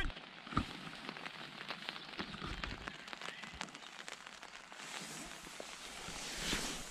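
Rain pattering on the fabric of an MSR Elixir 1 tent, heard from inside: many light, irregular taps over a soft hiss, with a brief louder rush of noise near the end.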